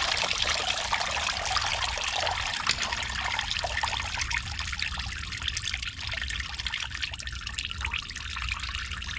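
Engine coolant pouring out of a disconnected coolant hose and falling from under the car. The flow eases from a steady pour to a thinner trickle after about four seconds.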